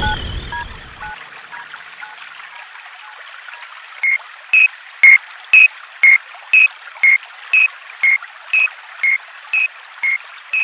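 Level crossing warning signal: short electronic tones alternating between two pitches, about two a second, starting about four seconds in over a steady hiss. A fainter, lower two-tone signal fades out in the first second or two.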